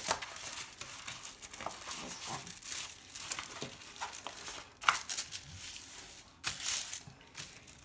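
Diamond painting canvas and its plastic film crinkling and rustling as it is unfolded and pressed flat by hand, in uneven crackles, with a sharp crackle about five seconds in.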